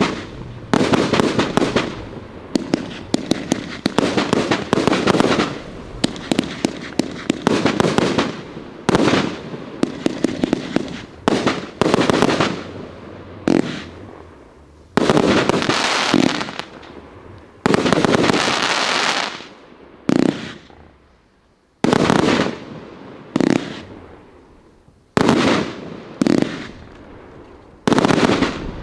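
Riakeo Peking Opera 3 X firework compound cake (241 shots, 20 to 30 mm tubes) firing: a dense run of shots and bursting stars with crackle, in loud volleys of a second or two separated by brief lulls.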